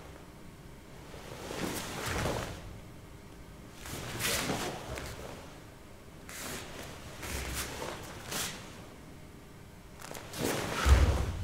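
Karate gi cloth swishing and bare feet shifting on a foam mat: several short swishes, then a louder swish with a thud near the end as the karateka moves.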